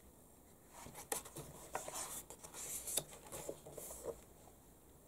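Glossy magazine pages handled and turned by hand: a few soft paper rustles and crackles between about one and four seconds in.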